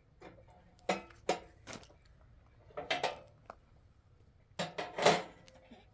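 Irregular clinks and knocks of hard objects being handled, several sharp strikes a second or so apart, the loudest about five seconds in.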